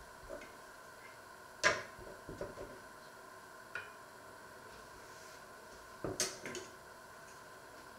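A few short clinks and knocks of kitchenware, the loudest about one and a half seconds in and a quick cluster around six seconds, over a faint steady hum.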